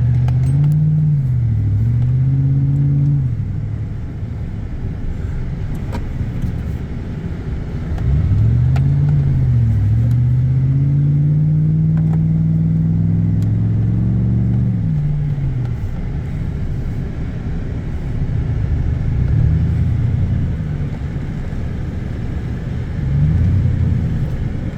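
Four-wheel-drive vehicle's engine revving up and down while driving hard through deep snow. The revs climb and fall in the first few seconds, then ease off. About eight seconds in they rise again and hold high until roughly fifteen seconds, then drop back, and they climb once more near the end.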